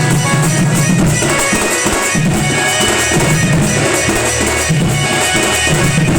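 Sambalpuri band party playing an instrumental tune: drums keeping a steady, busy beat under held melody notes.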